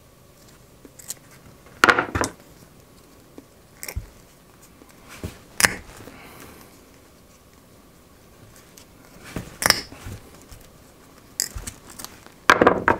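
Diagonal side cutters cutting through a braided synthetic rope: a sharp snip with each cut, about six cuts spaced a second or more apart, with the rope rustling in the hands between them.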